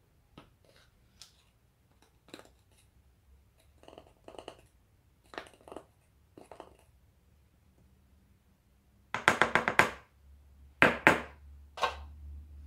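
Metal spoon scraping and clicking lightly in a plastic jar of baking powder, then a burst of rapid sharp clinks about nine seconds in and another shorter burst about a second later as the spoon meets the stainless steel bowl and is set down.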